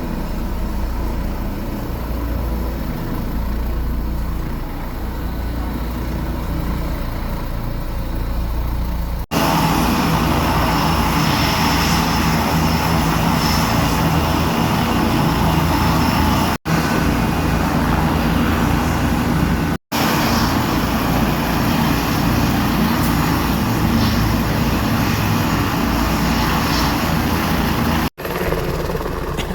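Aircraft engine noise at an airfield, a steady loud drone with low humming tones, jumping abruptly at several edit cuts and louder and brighter after the first, about nine seconds in.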